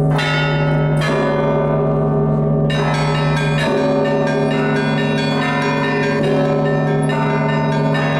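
Russian Orthodox church bells rung as a peal. A large bell's deep tone hangs under strikes of middle bells, and from about two and a half seconds in the small bells join in a quick, dense run of strikes.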